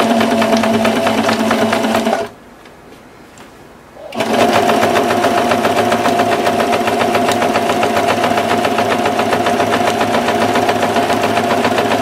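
Singer electric sewing machine running, topstitching through quilted fabric: fast needle strokes over a steady motor hum. About two seconds in it stops for about two seconds, then runs on steadily.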